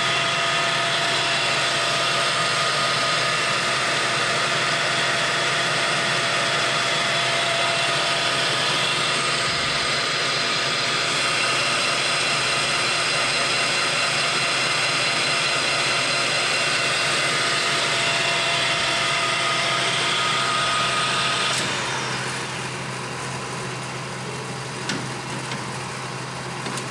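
Clausing Colchester Master 2500 engine lathe running at 1380 RPM, with a steady whine of several tones. About 22 seconds in, the whine falls in pitch and the sound drops off as the spindle slows down.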